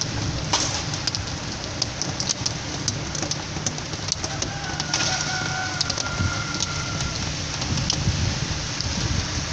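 Rain falling hard, with sharp drop clicks all through and a low, pulsing rumble of strong wind.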